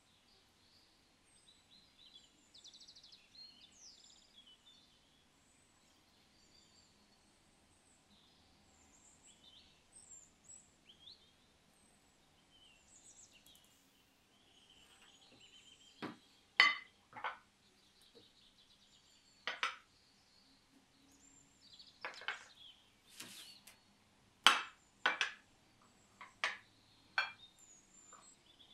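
Enamel mugs knocking and clinking against each other and against a glass baking dish as they are set into it. There are about a dozen sharp clinks from around halfway on, over faint bird chirping.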